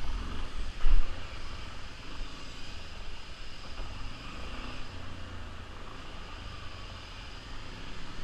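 Yamaha Lander 250 single-cylinder motorcycle running, under a steady low rumble, with two loud knocks in the first second.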